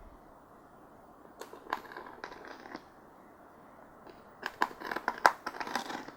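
Tightly taped parcel packaging being worked open by hand: two spells of crackling, ripping and rustling, the first about a second and a half in, the second louder from about four and a half seconds.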